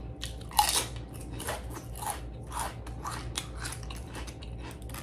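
Crunchy ridged potato chips bitten and chewed close to the microphone. A loud crunch comes about half a second in, then repeated crunching about twice a second.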